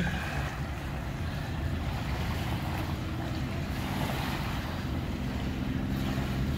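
Steady low drone of a passing motor yacht's engines, growing slightly louder toward the end, with small waves lapping on the sand and wind on the microphone.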